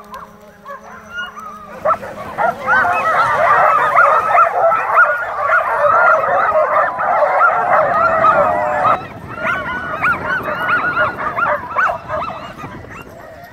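A large lot of harnessed sled dogs barking and yipping together, the excited din of teams hooked up and eager to run. The chorus breaks in suddenly about two seconds in over a steady hum, is loudest for several seconds, then thins out near the end.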